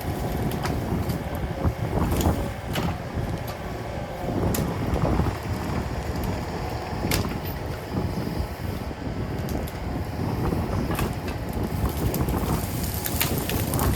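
Excavator engine running while the machine works, with scattered metallic clanks and knocks from the bucket and thumb, and wind buffeting the microphone.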